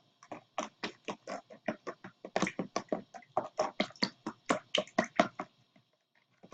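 Rapid, even tapping of a small excavation-kit digging tool, about five light knocks a second, stopping about a second before the end.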